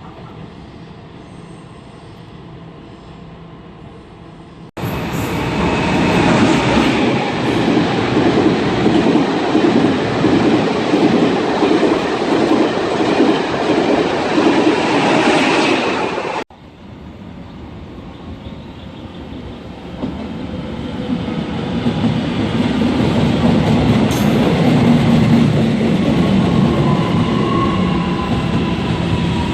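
Trains running through a railway station: wheel-on-rail rumble and clatter. A loud passage starts suddenly about five seconds in and cuts off abruptly around sixteen seconds, and then another train's sound builds steadily towards the end with a faint high wheel squeal.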